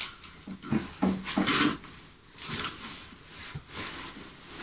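A heavy fabric curtain rustling in several bursts as it is handled and hooked onto a curtain rail, with a few light knocks.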